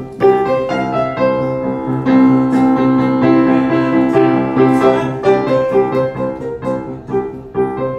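Upright piano played by hand: a melody over chords, with the notes left to ring into one another.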